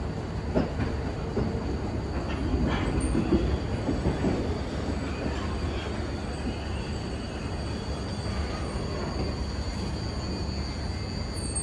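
Tokyo Metro Ginza Line subway train rolling over the depot level crossing, its wheels knocking over the rail joints several times in the first few seconds, with some wheel squeal.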